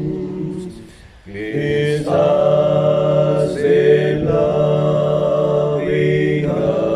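A man's voice singing a slow hymn a capella, his own voice layered into several harmony parts. The notes are long and held, with a short break about a second in.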